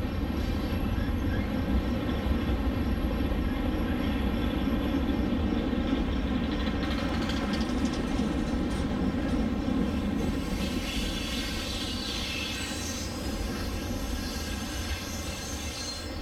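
HO-scale model freight train running steadily past, its wheels rolling on the track, with a brighter hiss joining about ten seconds in.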